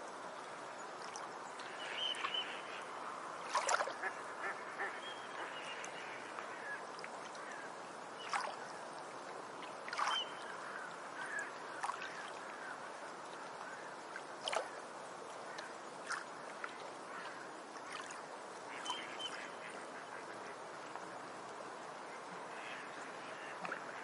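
Beach ambience: a steady wash of surf, with birds calling now and then, a dozen or so short calls, the loudest about three and a half seconds in.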